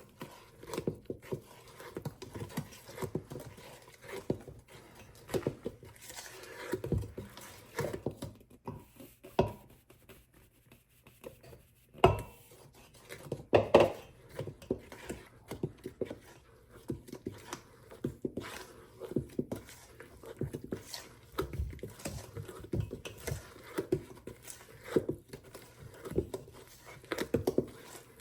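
Spatula or spoon folding banana bread batter by hand in a mixing bowl: irregular soft knocks and squishes against the bowl, with a couple of louder knocks near the middle.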